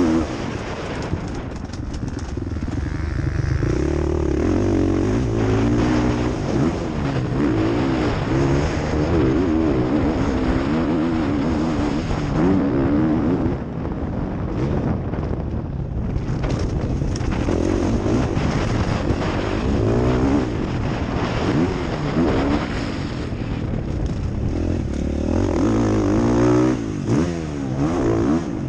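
Motocross bike engine heard close up as it is ridden hard around a dirt track, revving up and falling off again and again.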